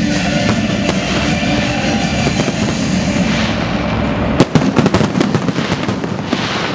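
Fireworks display: a continuous barrage of aerial shells bursting, with a dense run of sharp pops and crackles starting about four and a half seconds in.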